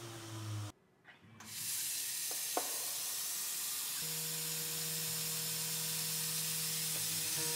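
Steady hiss of a mist-coolant nozzle spraying onto an end mill cutting aluminium on a Tormach 440 CNC mill. The milling spindle's steady tone joins about halfway through.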